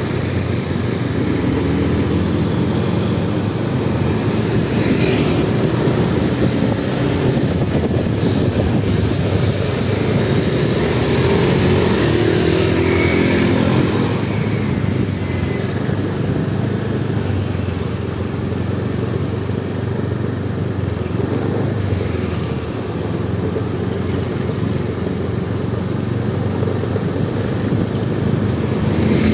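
Motorbike engine running at low speed in slow street traffic, its note rising and falling a little as it speeds up and eases off.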